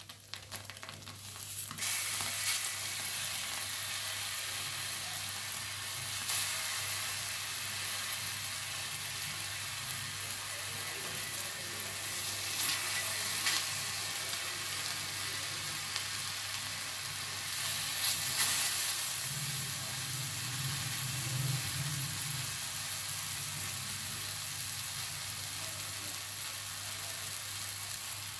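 Bread slices frying in hot sunflower oil in a pan, sizzling steadily; the sizzle gets louder about two seconds in.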